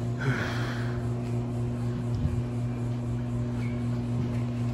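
Steady low electrical hum of cooling machinery, with a brief higher rustle about a third of a second in and a soft thump a little past two seconds.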